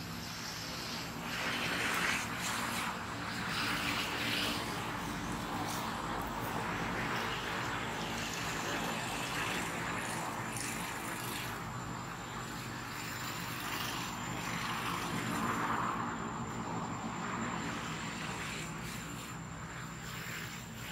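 Steady outdoor background noise: a low hum under a rushing hiss that swells and fades every few seconds, with a faint thin high tone throughout.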